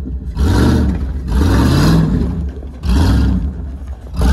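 Old pickup truck engine revving up in repeated bursts, each climbing in pitch, three times with a fourth starting at the end. It runs through a loose, hanging exhaust.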